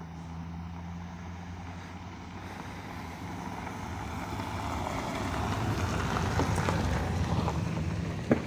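A vehicle's engine and tyre noise, growing steadily louder as it drives closer. A single sharp click comes near the end.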